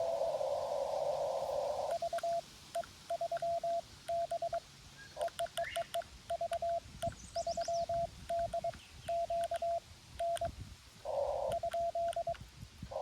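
Morse code sidetone from a Xiegu G90 transceiver: a single steady-pitched tone keyed in dots and dashes as the operator sends. The receiver's narrow-filtered hiss plays before the sending starts about two seconds in, breaks in briefly near the end, and returns at the close.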